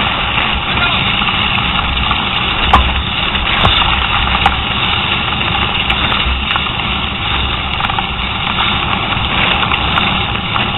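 Downhill mountain bike running fast over rough, wet dirt: steady wind and rumble buffeting the rider-mounted camera's microphone, with the bike's rattle and a few sharp knocks from bumps, the loudest about three seconds in.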